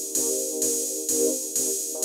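Electronic background music: a sustained synth chord over a steady beat of about two beats a second.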